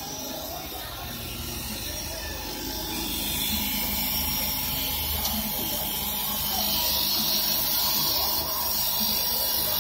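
CNC wood lathe cutting a spinning wooden blank: a steady machine noise with a high hiss from the tool shaving the wood.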